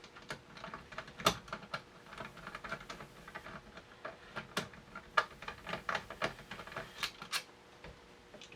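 Irregular small metal clicks and taps from handling the screws and stainless steel parts of a pump-action shotgun during reassembly, with a sharper knock about a second in and another about five seconds in.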